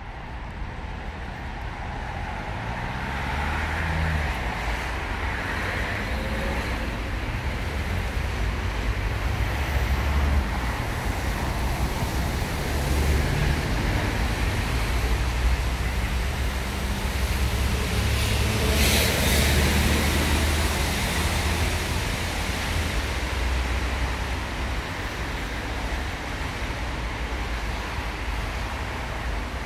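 City street traffic: motor vehicles passing on the road, a steady noise of engines and tyres that grows louder over the first few seconds. A brief loud hiss stands out about nineteen seconds in.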